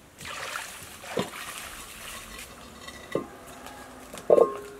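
Water splashing, then pots and bowls handled on the ground: a couple of dull knocks and, near the end, a loud clank that rings on briefly.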